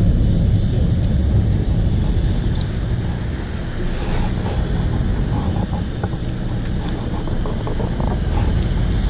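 Fishing boat's engines running with a steady low rumble, with a few light clicks partway through.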